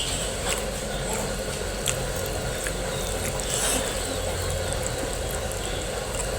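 Steady low hum of machinery from building work going on in the house, with a few faint clicks and smacks of eating on top.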